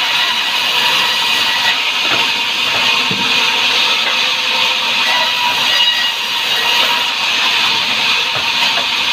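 Sawmill saw running through timber, a loud, steady high-pitched hiss and whine.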